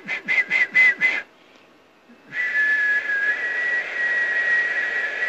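A man whistling a high, breathy note into a telephone as a sound-healing treatment: five short whistles in quick succession, then after a pause one long held whistle of about three seconds.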